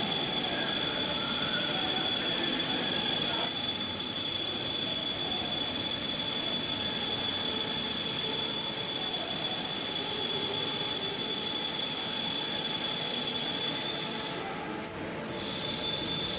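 Metal lathe boring out a bore with a boring bar in a four-way tool post: a steady high-pitched squeal from the cutting tool over the noise of the running lathe. The squeal breaks off for about a second near the end, then resumes.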